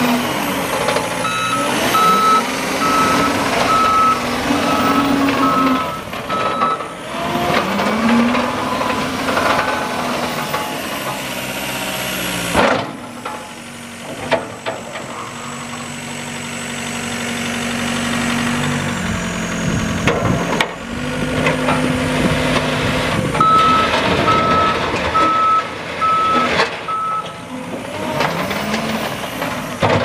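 John Deere 333E compact track loader's four-cylinder turbo diesel running, its pitch rising and falling as the machine drives, turns and moves its lift arms. A backup alarm beeps steadily twice, for about six seconds near the start and for a few seconds about three quarters of the way through, signalling that the loader is travelling in reverse.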